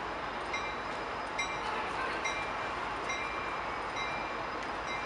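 Diesel passenger train at a station: a steady rumble under a bell dinging a little more often than once a second.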